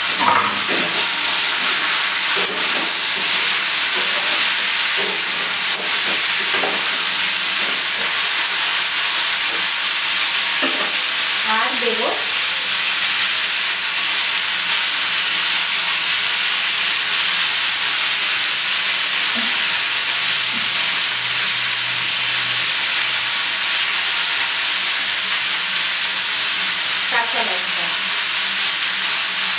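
Mixed vegetables sizzling in a kadai over a high gas flame, a steady frying hiss, with a spatula scraping and stirring them now and then: near the start, around the middle and near the end.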